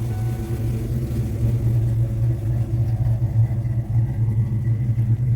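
Supercharged 5.0 V8 of a 1995 Ford Mustang idling steadily shortly after a cold start, warming up on a freshly repaired fuel line.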